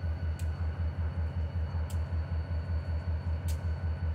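NYSW diesel locomotive idling: a steady low rumble that pulses about six to seven times a second. Faint sharp ticks come about every second and a half.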